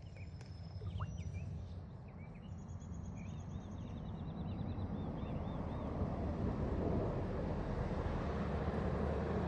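Outdoor rushing noise that grows steadily louder, with birds chirping in the background: a run of short repeated chirps and a brief high trill a few seconds in.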